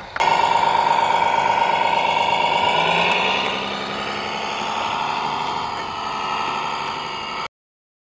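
Radio-controlled MAN tipper truck model running: a loud, steady mechanical whine with a strong pitched tone starts suddenly, then about three seconds in gives way to a quieter, wavering engine-like sound. It cuts off suddenly near the end.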